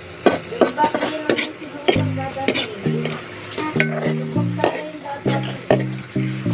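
A metal ladle stirring and scraping food frying in a wok, with repeated clicks of metal on the pan over a steady sizzle. Background music with a rhythmic bass line comes in about two seconds in.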